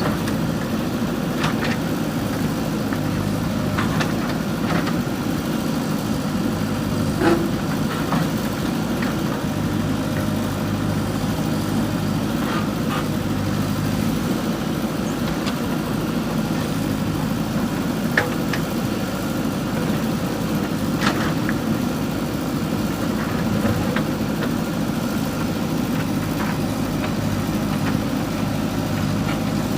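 JCB 3DX backhoe loader's diesel engine running steadily, with a few brief sharp knocks scattered through.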